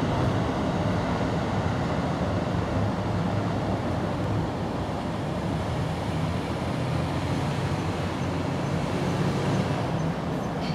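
Steady low rumble of distant traffic.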